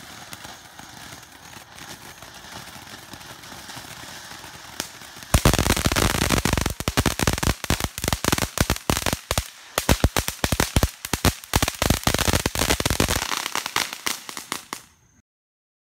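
Ground fountain fireworks hissing steadily. About five seconds in, a dense run of sharp cracks and pops begins and lasts about eight seconds. The hiss then fades, and the sound cuts out just before the end.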